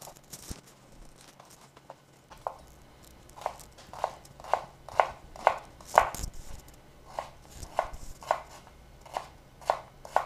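Chef's knife slicing beetroot into julienne strips on a wooden cutting board: sharp knocks of the blade on the board, sparse and faint for the first couple of seconds, then a steady run of about two a second.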